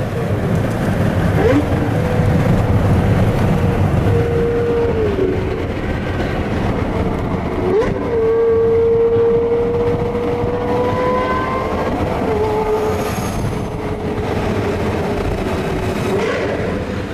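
Car engine and road noise at motorway speed, heard from inside a car cabin. The engine's steady drone dips and then jumps sharply back up a few times, as at gear changes.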